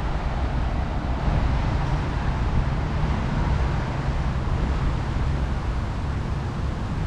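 Wind buffeting the microphone over the steady hum of city traffic.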